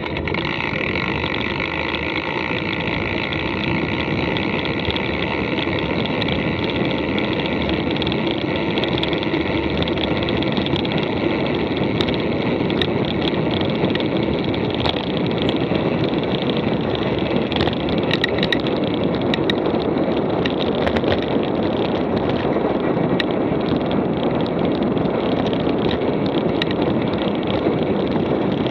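Steady rushing noise of a mountain bike being ridden on a dirt track: wind over the microphone and tyres rolling on the ground. Scattered small clicks and rattles come through, thickest a little past halfway.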